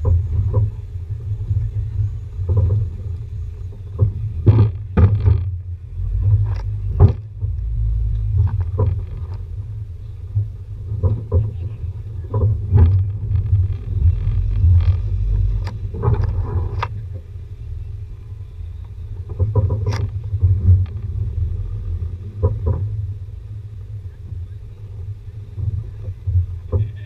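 Jeep Renegade Trailhawk driving slowly over rough dirt ruts: a steady low rumble of engine and drivetrain, heard from a hood-mounted camera, with frequent sharp knocks and thumps as the vehicle jolts over the bumps.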